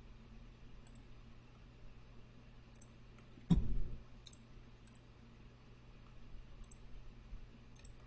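About seven sparse, light clicks from a computer mouse and keyboard as login credentials are entered. A single louder low thump comes about three and a half seconds in, all over a faint steady hum.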